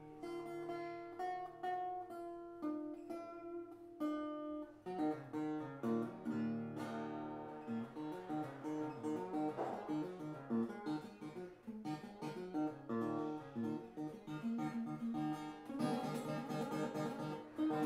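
Improvised acoustic guitar music on a small koa wood guitar: picked single notes at first, then fuller strummed chords from about five seconds in.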